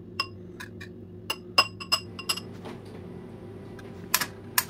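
Metal spoon clinking against a glass dessert cup, a run of sharp ringing clinks over the first two seconds or so. Near the end come two drier taps of a knife cutting through a banana onto a glass cutting board.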